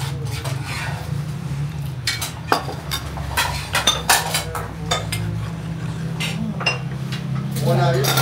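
Metal spoon clinking and scraping against an aluminium bowl and a clay dizi pot as abgoosht broth is poured off and stirred: many short, irregular clinks over a steady low hum.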